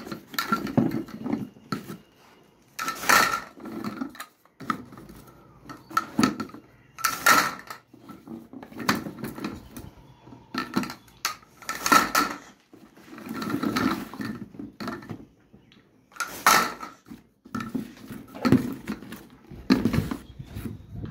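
Pipe fittings clattering against one another as they are handled and counted out one by one, with sharp clacks at uneven intervals and quieter rustling and shuffling between them.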